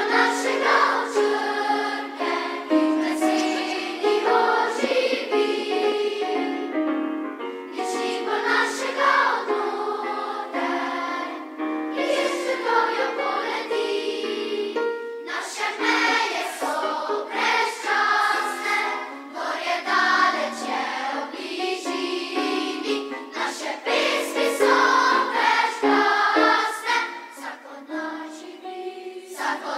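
Large combined children's and youth choir singing a song in Slovene, in phrases with short breaths between them.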